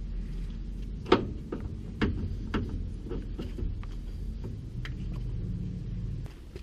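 Scattered sharp metal clanks and knocks of hand tools on the steering linkage, several spaced irregularly, the loudest about a second in. They sound over a steady low rumble that drops away near the end.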